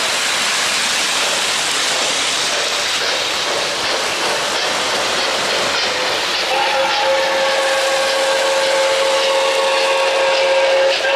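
O-gauge model trains running on three-rail track: a steady rolling noise with hiss. About six and a half seconds in, a steady held tone with several pitches joins as a smoking model steam locomotive approaches, and a few clicks sound near the end.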